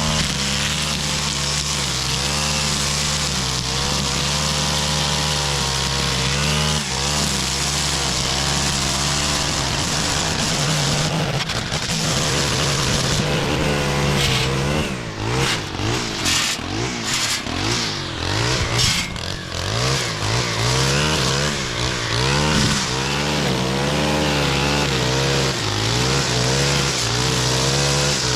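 Stihl two-stroke string trimmer running, held fairly steady at high throttle at first, then revving up and down over and over in the second half as it is worked through the grass.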